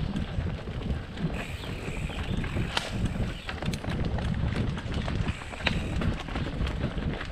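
Mountain bike ridden along a dirt trail: wind buffeting the GoPro's microphone as a steady low rumble, with the tyres and the rattling bike making many quick, irregular knocks and clicks.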